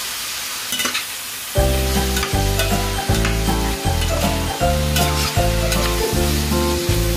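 Pork pieces sizzling in a hot stainless steel frying pan, with a spatula scraping and clicking against the pan as they are stirred. Background music with a steady bass beat comes in about one and a half seconds in and is the loudest sound from then on.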